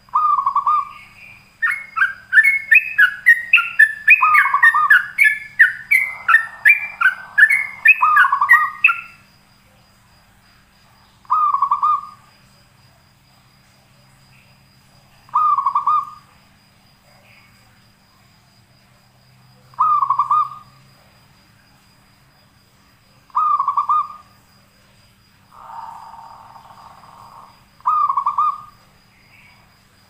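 Yellow-vented bulbul singing: a fast run of quick, falling whistled notes for the first nine seconds, then short single phrases about every four seconds, with two rougher, raspy notes among them.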